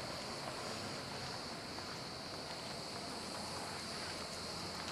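Steady waterside ambience: an even hiss of wind and lapping water, with a constant high-pitched insect buzz over it.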